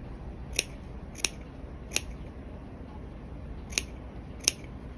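Scissors snipping into the seam allowance of a jacket's armhole seam: five short, sharp clips, three in quick succession, then a pause of nearly two seconds before two more.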